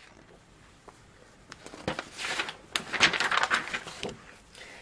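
Paper rustling in irregular bursts as a picture book's pages are handled and turned.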